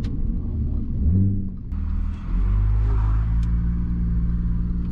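Supercharged Audi V6 engine running under the car as it drives. Its note shifts for the first couple of seconds, then settles into a steady low drone.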